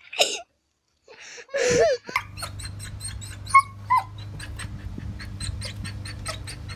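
A dog's short cries: a wavering whine about a second and a half in, then two brief high yelps about halfway through. Underneath are a steady low hum and a run of light clicks.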